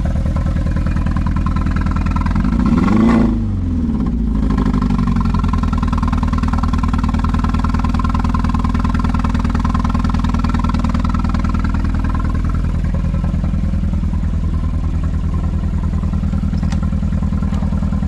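VW Golf Mk5 GTI's BWA 2.0 TFSI four-cylinder engine idling with a pulsing, uneven beat, blipped once to a brief rev about three seconds in before dropping back to idle. It does not sound healthy: the engine has no compression in one cylinder.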